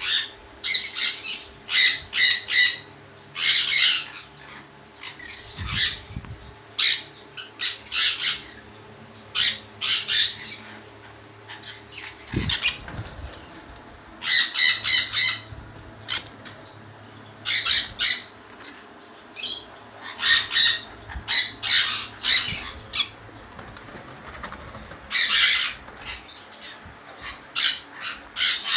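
Caged small parrots repeatedly screeching in short, harsh calls that come in clusters with brief pauses, mixed with noisier bursts that are likely wing flapping.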